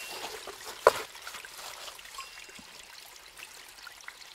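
Shallow creek water trickling over rocks, with a single sharp knock about a second in.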